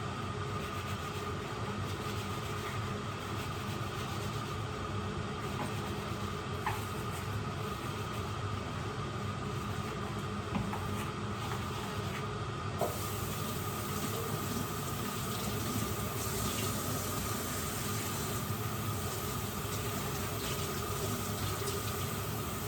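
Steady hiss of water in a kitchen with a faint steady tone and a few light clicks; the hiss grows brighter about halfway through.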